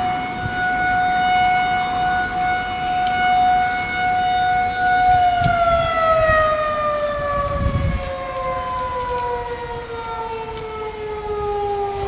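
Federal Signal 2001-SRNB rotating electromechanical civil-defense siren sounding its steady alert tone, then, about five seconds in, sliding slowly down in pitch as it winds down at the end of the alert. A brief low rumble comes in around two-thirds of the way through.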